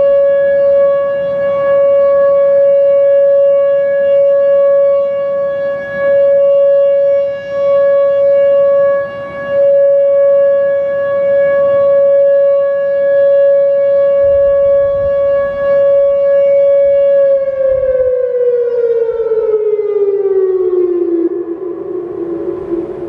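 Whelen WPS-2906 and WPS-2910 electronic outdoor warning sirens sounding the steady alert tone of a monthly test: one held pitch, loud, with small swells and dips in level. About 17 seconds in the tone slides down in pitch as the one-minute alert ends, then fades.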